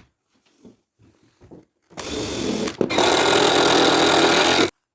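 A power drill running in two stretches: a first run starting about two seconds in, a brief break, then a louder steady run that stops abruptly near the end. Faint handling knocks come before it.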